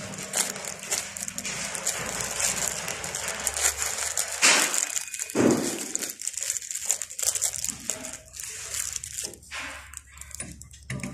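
Close rustling and crinkling handling noise from gloved hands, irregular throughout, with two louder rubbing bursts about four and a half and five and a half seconds in.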